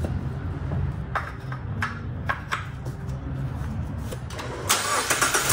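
Scattered plastic knocks and clicks from handling the oil jug, the funnel and the oil filler cap on the engine, with a quick run of clicks near the end as the filler cap is twisted back on. A steady low background sits under it.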